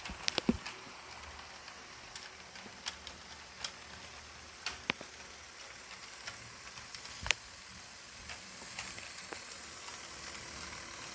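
HO-scale model diesel locomotive and freight cars running on track: a steady faint hiss of wheels and motor, with scattered sharp clicks, the loudest a quick cluster near the start and a single one about seven seconds in.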